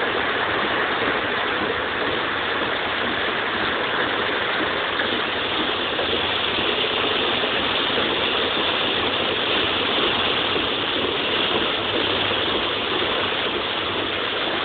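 Heavy rain hitting a moving vehicle's roof and windshield, heard from inside the cab, mixed with the vehicle's engine running: a steady, dense hiss.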